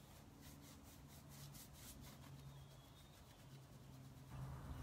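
Faint scrubbing of a paintbrush working clay paint into a dresser's surface, in quick repeated strokes, growing louder near the end.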